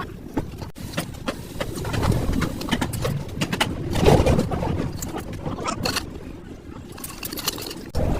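Truck repair workshop noise: scattered sharp clanks and knocks over a continuous low rumble, loudest about four seconds in.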